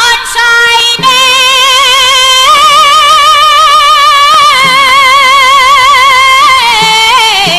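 Music: a high singing voice with wide vibrato sings a few short notes and then holds one long note, sliding down in pitch near the end, over a faint low accompaniment.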